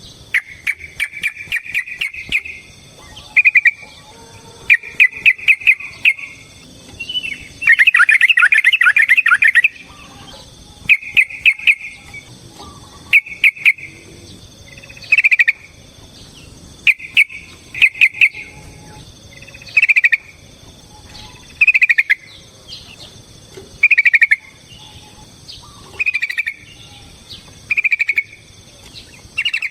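Yellow-vented bulbul singing: loud, bubbly chattering phrases repeated about every two seconds, one longer phrase about eight seconds in, with a faint steady insect-like hum behind.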